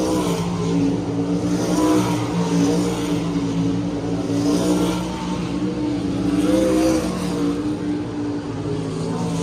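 410 sprint car V8 engines running and revving, the pitch rising and falling with swells every couple of seconds.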